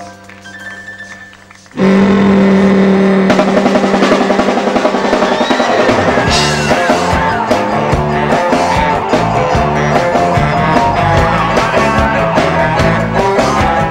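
Music: a few quiet held notes, then about two seconds in a rock band comes in loudly with drums and electric guitar and plays on at a steady beat.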